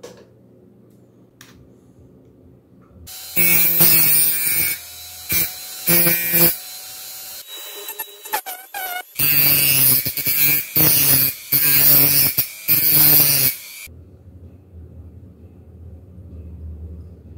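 A rotary tool with a small cut-off disc grinds into a steel drill bit in about seven short, loud passes, with the motor whining and harsh grinding on each contact. A low hum follows near the end.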